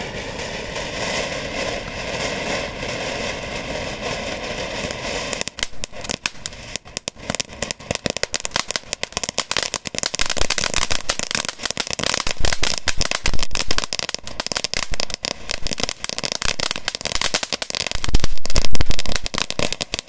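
Feeriya ground spark fountain firework burning: a steady hiss of spraying sparks for about five seconds, then dense rapid crackling that keeps on and grows loudest near the end.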